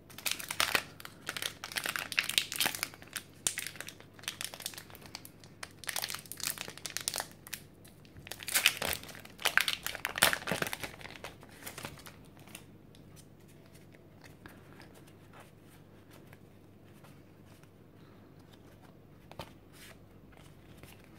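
Foil Pokémon booster pack wrapper crinkling and tearing open for about the first twelve seconds, loudest just before the middle. Then only faint handling of the cards.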